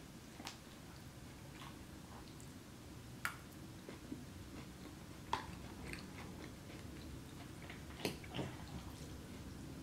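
A person chewing mouthfuls of salad and pasta close to the microphone, with about five sharp clicks of a fork against the bowls scattered through.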